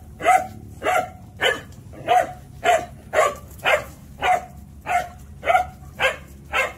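A dog barking over and over in a steady rhythm, a little under two barks a second.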